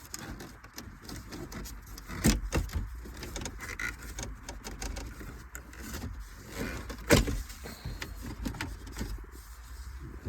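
Plastic shifter bezel of a 2014 Ford Escape being pried and pulled loose by hand: scattered plastic clicks and rubbing as the trim clips work free, with two sharp snaps, one about two seconds in and a louder one about seven seconds in.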